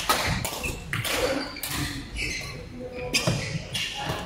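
Badminton rackets striking a shuttlecock in a rally, several sharp hits about a second apart, echoing in a large hall, with shuffling footsteps on the court between them.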